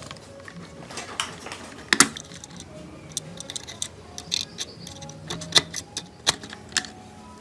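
Irregular sharp clicks and taps of a screwdriver and metal tweezers against the plastic chassis of a toy remote-control car as a small wire spring is fitted, the loudest about two seconds in.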